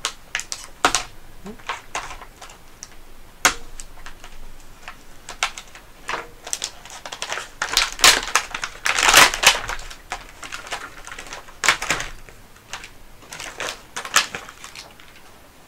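Stiff clear plastic blister packaging being pried and pulled apart by hand: irregular crackles, clicks and snaps of the plastic, with a longer stretch of crinkling and crunching about eight to nine seconds in.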